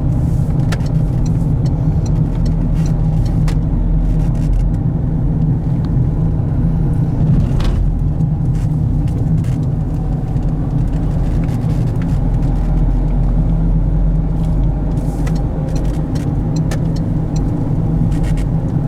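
Car driving, heard from inside the cabin: a steady low rumble of engine and tyres on the road, with a few faint ticks and knocks.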